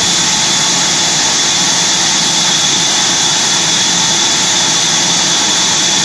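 Sawmill band saw running steadily and loudly, with a constant hiss and a steady high whine over a low machine hum.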